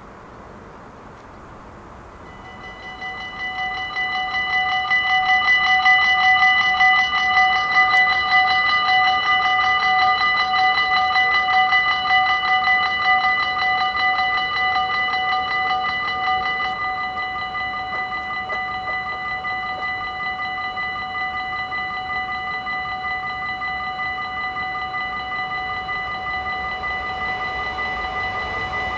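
Dutch level-crossing warning bell ringing in rapid, even strokes. It starts about two seconds in, swells to full volume, then drops to a lower, steady level about halfway through. The low rumble of an approaching train begins near the end.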